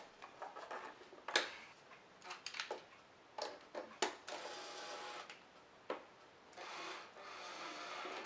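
Outer shell of a 1971 Hoover Senior upright vacuum cleaner being eased back into place by hand: scattered sharp clicks and knocks, and two longer stretches of scraping as the shell rubs over the body.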